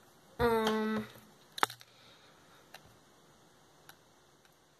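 A short vocal sound held at one steady pitch for about half a second, then a single sharp click and a couple of faint ticks.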